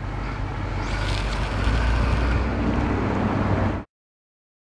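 Wind buffeting the microphone: a steady low rumble with a hiss over it, which cuts off suddenly about four seconds in.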